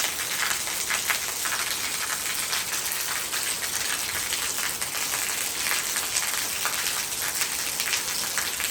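Heavy rain falling: a steady, even hiss made of many fine patters of drops hitting a surface.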